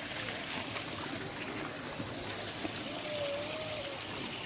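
Spring water flowing in an open channel, a steady rush, under a steady high-pitched hiss; a faint wavering call sounds briefly about three seconds in.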